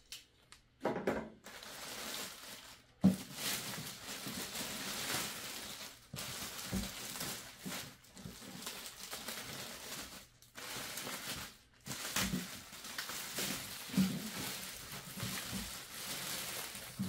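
Large plastic bag around a 3D printer rustling and crinkling as it is pulled and worked off, in long noisy stretches broken by short pauses. A sharp knock about three seconds in is the loudest sound.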